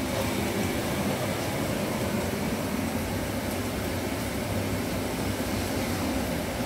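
Cooker-hood extractor fan running with a steady whir over the stove, where onions are frying in a pot.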